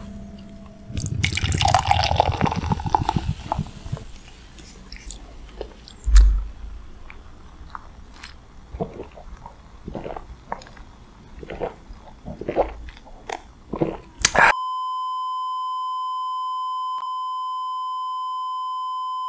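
Beer being gulped from a glass mug, with wet swallowing and small mouth clicks. About fourteen seconds in it cuts abruptly to a steady test-card beep tone that runs on to the end.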